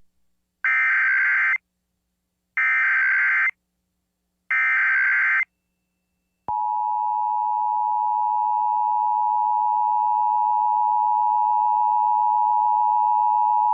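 Emergency Alert System SAME header: three short bursts of screeching digital data tones, about two seconds apart, carrying the coded alert. After a second's pause comes the EAS two-tone attention signal, a steady loud beep that starts about halfway through.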